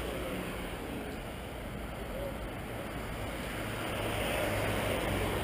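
Steady rumble of heavy road traffic passing on a busy multi-lane road, engines and tyres blending into one noise that swells slightly near the end.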